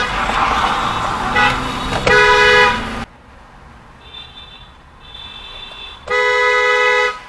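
Car horns honking: a long steady blast about two seconds in, fainter short toots in the middle, and another long blast of about a second near the end. Road noise runs under the first few seconds and then drops away suddenly.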